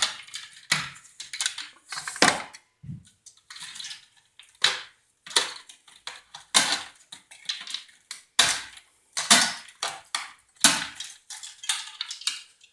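Metal parts of a plasma television being handled during teardown: irregular clinks and knocks, about one or two a second.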